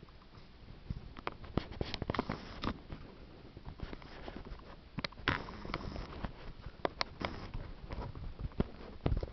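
Stomach gurgling: irregular small pops, clicks and gurgles, with a louder gurgle just before the end. The uploader attributes the sounds to a stomach ulcer.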